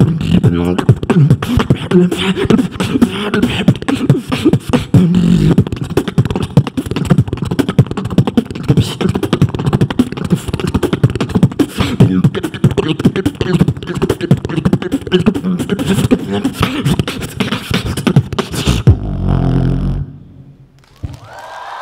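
Human beatboxing through a microphone and PA: a fast, dense run of vocal kick, snare and hi-hat sounds with deep bass hums, ending about twenty seconds in on a held low bass note that cuts off suddenly. A crowd starts to cheer just before the end.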